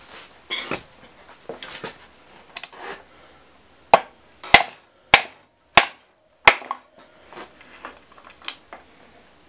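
Handling noise, then five sharp knocks about two a second near the middle and a few lighter taps, from working the main axle and large nylon gear assembly of a Bosch mid-drive e-bike motor loose from its housing.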